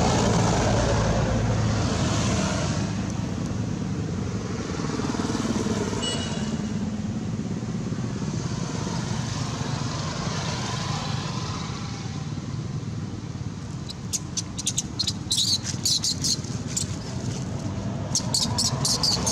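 A motor vehicle running past, loudest at the start and fading away. In the last few seconds, a rapid series of short, high-pitched squeaks from a baby long-tailed macaque.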